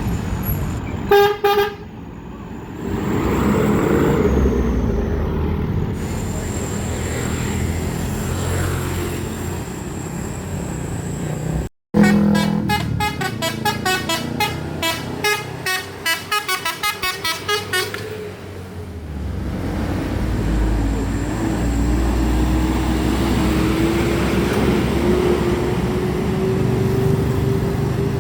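Heavy road traffic with diesel trucks running and vehicle horns tooting: a short blast about a second in, then a rapid string of toots in the middle. In the last third an engine's pitch slowly rises as a vehicle pulls away.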